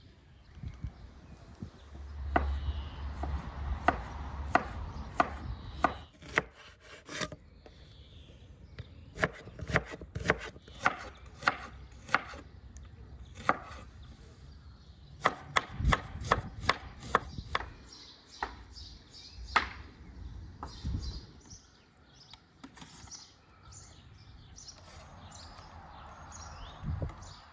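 Meat cleaver slicing onion on a wooden cutting board: a run of sharp knocks as the blade meets the board, coming in quick bursts with short pauses, starting about two seconds in.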